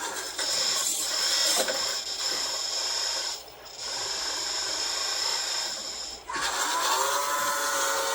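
Hydraulic pump of a 1/14 scale RC excavator running with a steady high whine while the machine moves, dipping briefly twice; about six seconds in, a lower set of tones joins as the hydraulics take on a new load.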